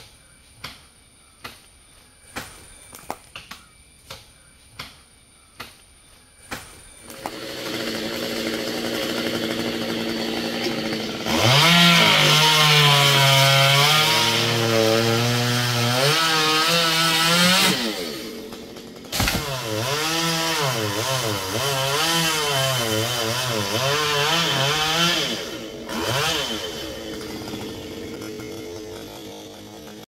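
A run of sharp ticks, about one a second, then a Stihl chainsaw comes up to speed and runs at high revs cutting into mahogany, its pitch wavering as the chain takes the load. It drops off briefly about two-thirds of the way through, then cuts again and eases off near the end.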